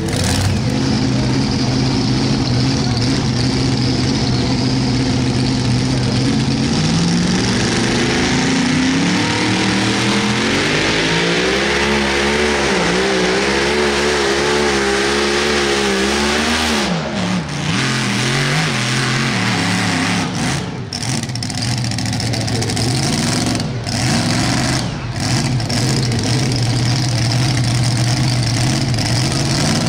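Mini rod pulling tractor's V8 engine running at a steady low speed, then revving up over a few seconds and holding high, wavering revs under load as it pulls the sled. After that it drops back to a lower steady run near idle.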